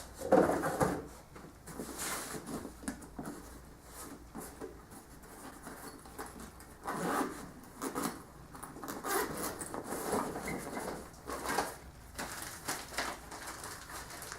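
Rustling and knocking of packaging as the contents are handled and taken out of a cardboard box, in irregular bursts, loudest about a second in.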